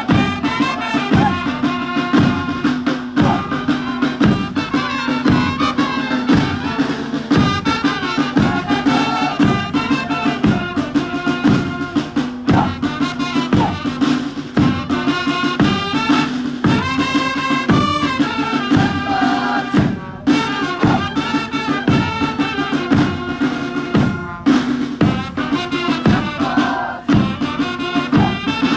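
Band music with a steady drum beat, a held drone under it and a melody line above.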